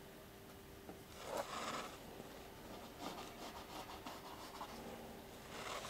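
Faint rubbing and scraping of a thin plywood plank pattern against the boat's timber as it is shifted and held in place at the bow. A short louder scrape comes about a second in, and a run of quick light scratches about three seconds in.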